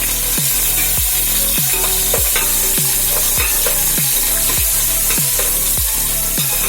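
Onion and green chillies sizzling as they fry in hot oil and ghee in a kadai while being stirred, with a steady low beat of background music underneath.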